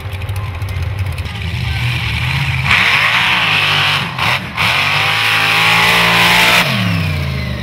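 Modified mud truck engine idling, then opened to full throttle on a launch down a dirt drag track: a sudden loud run with rising engine pitch and a brief dip in the middle, then the pitch falls as it backs off near the end.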